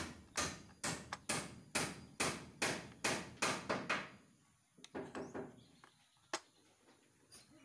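Screwdriver working the screws of an electric planer's blade holder on a table: a quick, even run of sharp knocks, about two or three a second. Past the middle it thins to a few faint ticks and one last sharp click.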